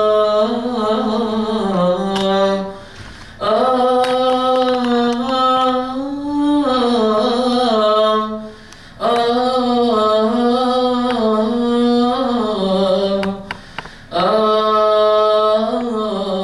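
Male voices chanting a Coptic Orthodox liturgical hymn unaccompanied, in slow melismatic phrases on long held notes, with three short pauses for breath.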